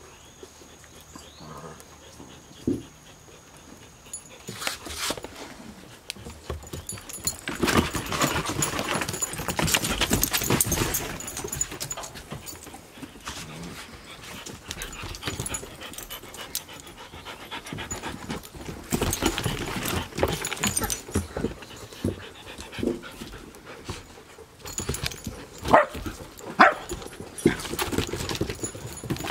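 Dogs playing on a wooden deck: paws scrabbling and nails clicking on the wet boards, with panting, in busy spells. Near the end a dog gives two short, high cries.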